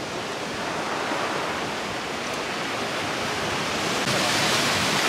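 Sea surf breaking on a rocky shore, a steady rushing noise, mixed with sea wind blowing across the microphone. It gets louder and brighter about four seconds in.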